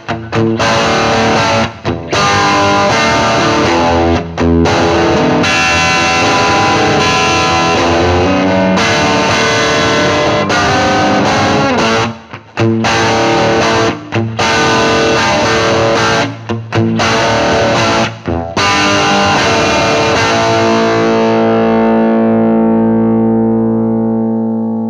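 Electric guitar played through a Kruse-modified Marshall Origin 20 combo amp in its Classic Plexi mode, with an overdriven crunch tone. Riffs and chords run with short breaks, then a final chord is held, rings on and fades out at the very end.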